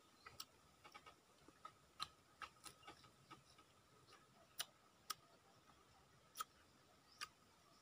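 Faint, irregular sharp clicks, about two a second and unevenly spaced, from fresh tamarind pods being handled, cracked and eaten by hand. A faint steady thin tone sits under them.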